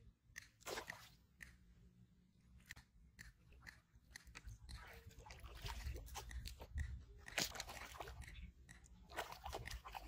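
A hooked fish thrashing and splashing at the surface by the line: irregular crackling splashes and clicks over a low rumble that grows stronger about halfway through.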